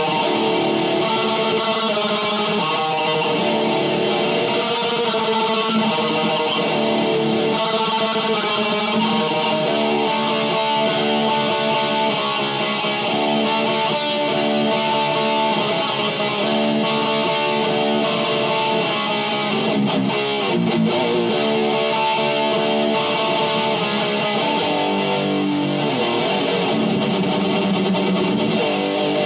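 Electric guitar playing a run of extreme-metal riffs, the notes changing quickly.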